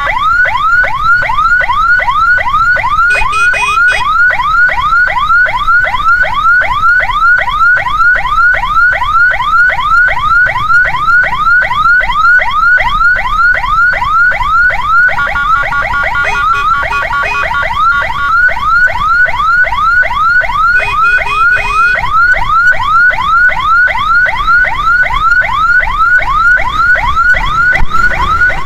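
Ambulance electronic siren on its fast yelp setting, rapid rising sweeps repeating about two and a half times a second. A short steady tone cuts in over it three times.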